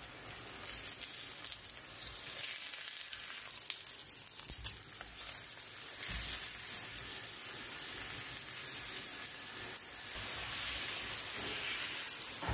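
A stuffed paratha frying in oil on a flat nonstick tawa over medium heat, sizzling steadily. A few soft knocks come from a spatula pressing it down and turning it over.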